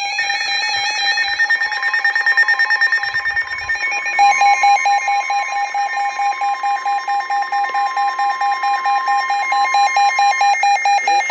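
Weather alert radio sounding its alarm for an incoming warning: a rapid, loud beeping, with a steady tone joining in about four seconds in and stopping near the end.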